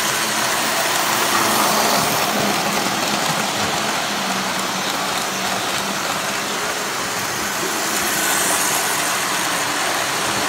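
Three-rail O-gauge model train running past close by: a steady rumble of wheels on the tinplate track with a faint low motor hum.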